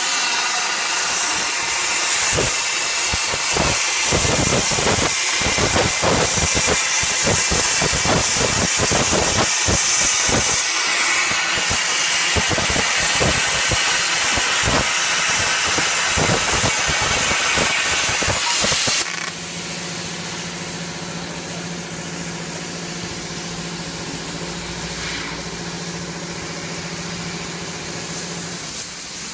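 Plasma torch of a portable CNC plasma cutter cutting metal plate: a loud, steady hiss with a rough crackle. About two-thirds of the way through it drops suddenly to a quieter steady hiss with a low hum.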